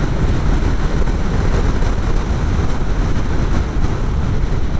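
Motorcycle engine running steadily on the move, mixed with wind rush on a helmet-mounted microphone.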